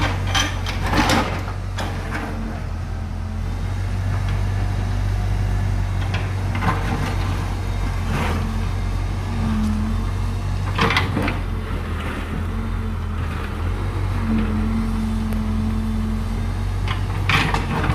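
JCB backhoe's diesel engine running steadily under work, a higher hum rising in several times as it takes load. Several sharp knocks and scrapes from the bucket breaking up a concrete water-channel control box.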